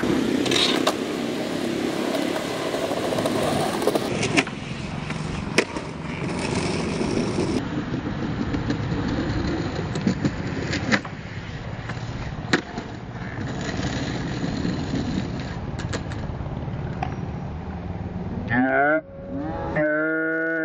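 Skateboard wheels rolling on concrete and paving, with several sharp clacks of the board popping and landing on tricks. Near the end a rising glide turns into a steady held tone.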